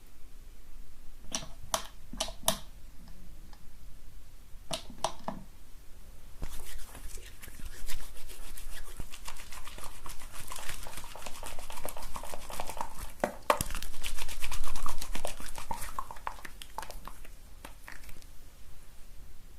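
Hair being scrubbed with shampoo lather, recorded close up in binaural sound. There are a few separate wet strokes, then from about six seconds a dense, crackling scrubbing of foamy hair that ends shortly before the end.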